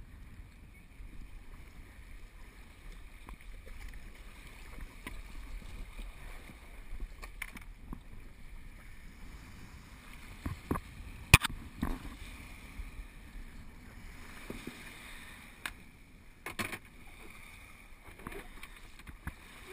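Water splashing and lapping around a sea kayak as it is paddled in shallow water, with wind rumbling on the camera microphone. Scattered sharp knocks come through, the loudest about eleven seconds in.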